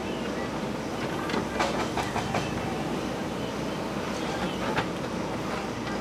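JCB 3DX Super backhoe loader's four-cylinder diesel engine running steadily as the backhoe works. Sharp clanks and knocks of the steel bucket and stones come in a cluster between about one and a half and two and a half seconds in, and once more about five seconds in.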